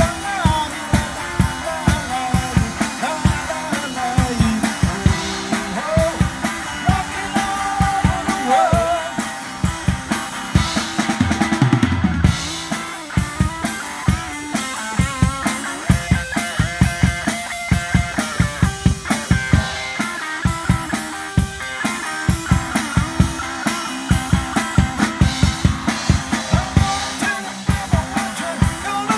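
Music with a drum kit keeping a steady beat, about two strikes a second, and a melody over it.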